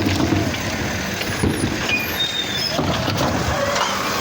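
A motor vehicle running, with steady engine rumble and road noise and a few short high squeaks over it.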